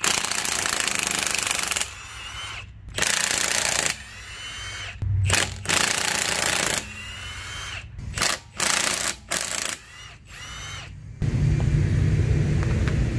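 Milwaukee 2767 M18 Fuel half-inch cordless impact wrench hammering in a series of bursts, some over a second long and others short blips, as lug nuts are run off the wheel; its motor whines down after several bursts. A steady low rumble takes over near the end.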